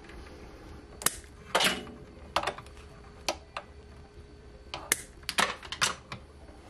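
Hand wire cutters snipping insulated copper electrical conductors to length, with the wires being handled: a string of sharp, irregular snips and clicks.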